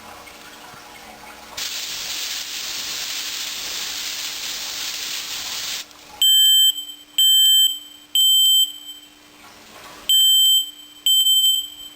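Aerosol can of test smoke hissing for about four seconds, then a FireX 4618 hardwired smoke alarm going off with loud, high-pitched beeps in threes: three beeps, a pause, three more. It sounds alone because a loose interconnection wire keeps it from setting off the other alarms.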